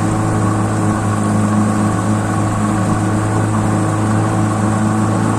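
Outboard motor of a small river boat running steadily at cruising speed, an even low hum that does not change.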